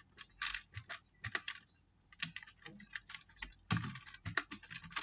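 Typing on a computer keyboard: a run of irregular, quick keystrokes, with one heavier key hit about three-quarters of the way through.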